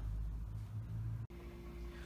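Quiet room tone with a low steady hum, broken by an abrupt edit cut about a second in, after which a different faint background with a thin steady tone continues.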